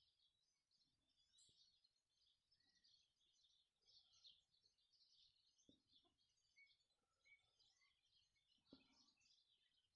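Very faint chorus of small birds chirping continuously, with a couple of soft low thumps about six and nine seconds in.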